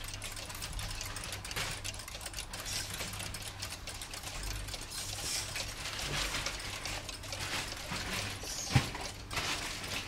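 Many mechanical cuckoo clocks ticking at once, their pendulum escapements making a dense, overlapping clatter of rapid clicks, with one sharper click about nine seconds in.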